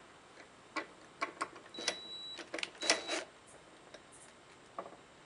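Scattered metal clicks and clacks from a swivel TV wall-mount arm and its bracket being moved and handled, with a cordless drill held against it; two short high whines come about two and three seconds in.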